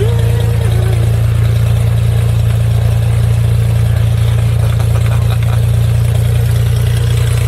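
Aircraft engine droning steadily in flight, heard from inside the cabin.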